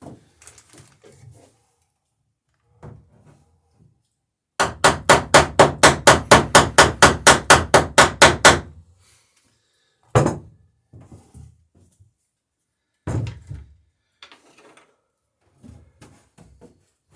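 Hammer riveting wooden dory planking: a quick, even run of about twenty blows, some five a second, peening over a rivet, followed later by two single knocks and a little quieter handling.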